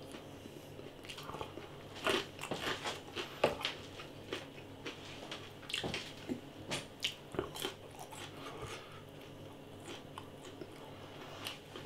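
A person biting into and chewing crispy battered chicken chunks: irregular crunches and mouth noises, with the louder bites about two seconds in and again between six and eight seconds.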